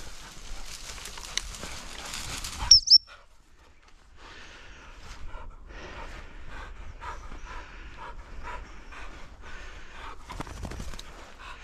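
Rustling through rough grass, then two loud high-pitched pips about three seconds in. After a brief lull, an English springer spaniel pants rapidly and rhythmically close by.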